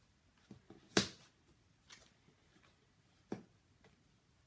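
A few light snaps and taps of oracle cards being handled and laid down on a tabletop, the sharpest about a second in and another a little after three seconds.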